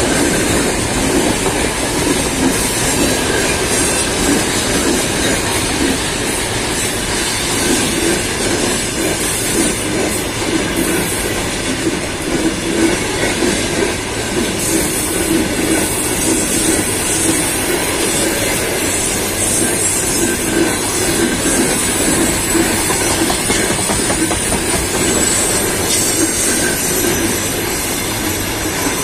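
Loaded freight train of open-top gondola wagons rolling past close by: a steady rumble and clatter of steel wheels on the rails that holds even throughout.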